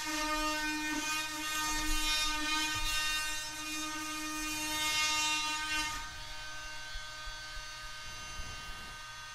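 Motorised machinery working in the kitchen, heard from the next room: a steady whine over a rough grinding noise that fades about six seconds in, leaving a quieter whine.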